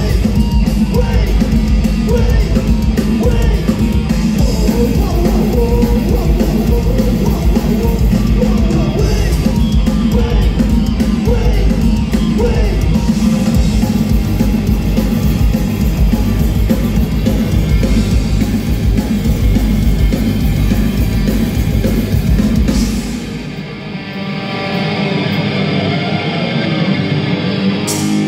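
Live rock band playing loudly through a PA: electric guitars, bass and a drum kit, with vocals. About 23 seconds in the bass and drums drop out and the music gets quieter for the last few seconds.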